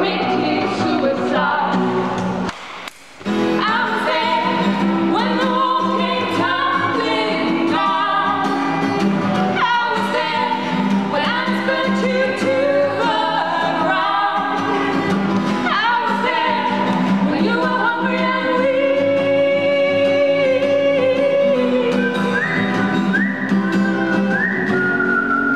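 Two women singing together to a strummed acoustic guitar, played live. The sound briefly drops out about three seconds in, then the song carries on.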